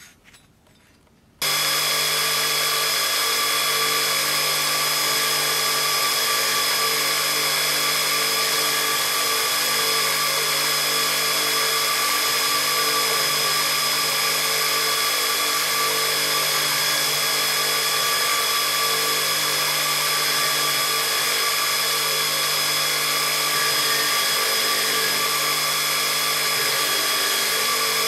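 Belt grinder running at a steady speed: a constant machine noise with a low motor hum and fixed high whines. It comes in suddenly about a second and a half in.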